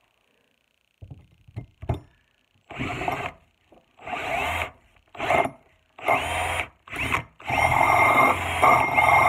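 Electric drill with a small twist bit boring a pilot hole into a steel axe head. After a few clicks about a second in, the drill is run in a series of short bursts, each starting with a rising whine, and then runs steadily from about seven seconds in.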